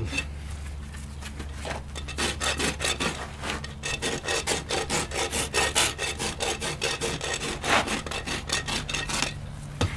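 Farrier's hoof rasp filing a bare horse hoof: a run of quick, even rasping strokes, about two to three a second, starting after a short quieter spell and running until shortly before the end.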